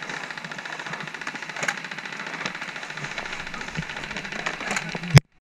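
Fast, even rattle of airsoft guns firing on full auto, with a few sharper clicks. Near the end comes one loud crack, and then the sound cuts off abruptly.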